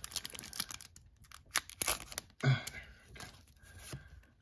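Foil wrapper of a Pokémon TCG booster pack being torn open by hand, a quick run of sharp crinkling and tearing crackles through the first two seconds or so. A brief vocal sound comes midway.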